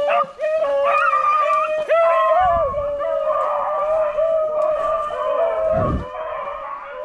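Beagles baying in long, drawn-out howls, several voices overlapping, as the pack opens on a freshly jumped swamp rabbit.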